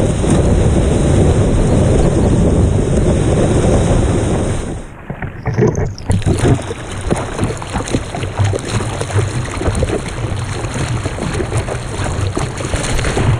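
Water rushing and splashing around a surfboard as a surfer paddles it prone through the ocean, with wind on the microphone. About five seconds in, the sound drops and goes muffled for a second, then comes back as choppy splashes from the paddle strokes.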